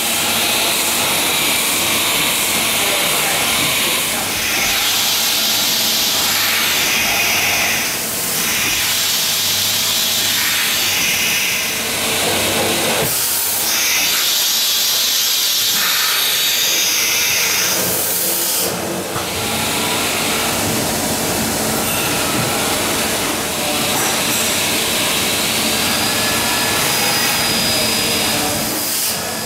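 Daewoo Ace V400 vertical machining centre running: a steady loud hiss over a low machine hum, with the hiss changing and dropping briefly a few times.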